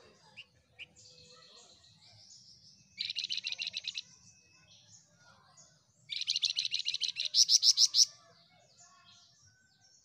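Caged flamboyan songbird singing two bursts of fast, rapidly repeated chattering notes, about a second apart. The second burst is longer and ends in louder, sharper notes.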